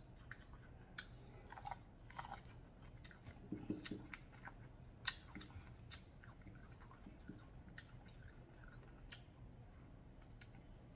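Faint close-up eating sounds of someone chewing corn on the cob: soft wet chews and lip smacks with scattered sharp clicks.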